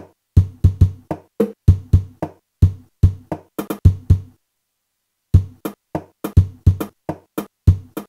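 Drum-like one-shot samples made from a guitar, played from a MIDI keyboard through a sample-launcher plugin: kick-like thuds and snare- and hat-like hits in a loose, uneven beat. Each hit cuts off quickly, and the playing stops for about a second a little past the middle.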